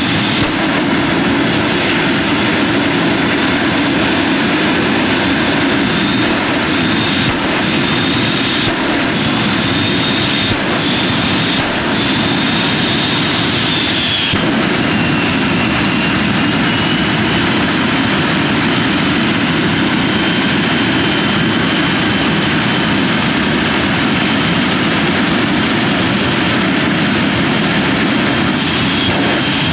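Jet truck's jet engine running steadily at high power, a continuous roar with a high turbine whine that drops in pitch about halfway through and then slowly creeps back up. A few sharp cracks sound over it in the first half.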